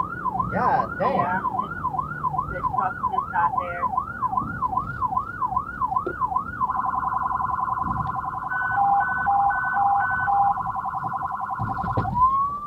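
Electronic siren of a responding fire vehicle on yelp, its pitch sweeping up and down about two and a half times a second. About halfway through it switches to a rapid warble, and near the end it drops and starts a slow rising wail.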